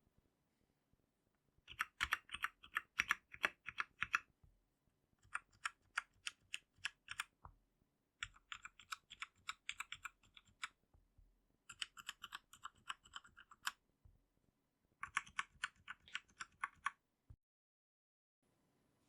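Typing on an RK71 mechanical keyboard: quick runs of key clicks in five bursts with short pauses between them, stopping shortly before the end.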